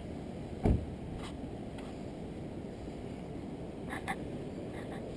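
A steady low rumble of outdoor background noise, with one loud thump less than a second in and a couple of faint clicks about four seconds in.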